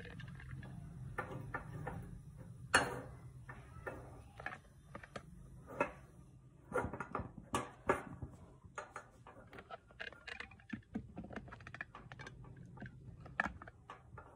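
Scattered light clicks and ticks from a small steel kadai of oil heating on a gas stove, one louder click about three seconds in.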